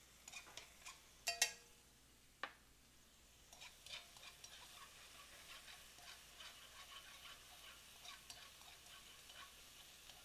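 Minced garlic frying gently in hot oil in a wok, heard as faint crackling with scattered small pops. There are two sharp clicks about one and a half and two and a half seconds in.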